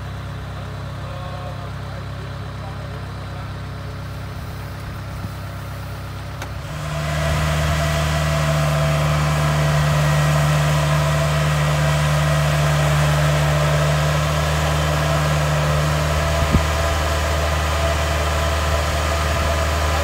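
Kubota DC70 Plus combine harvester's 70-horsepower engine idling steadily, then about seven seconds in it revs up and holds at a higher, louder working speed with added mechanical noise as the machine moves off on its crawler tracks.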